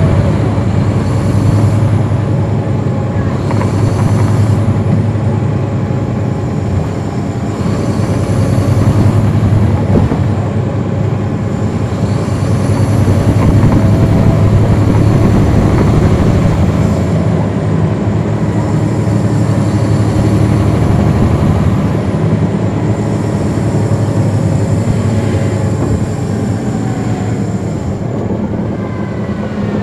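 Caterpillar C13 ACERT diesel engine of a NABI 40-ft transit bus heard from on board, pulling through repeated accelerations that swell and ease every few seconds. A faint high whine rises and falls with the pulls.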